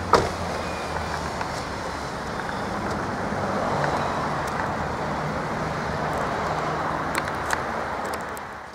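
Motorcycle engines running at low speed as two touring motorcycles ride across a railroad grade crossing. A steady hum swells about halfway through and fades out near the end. A single sharp click comes just after the start.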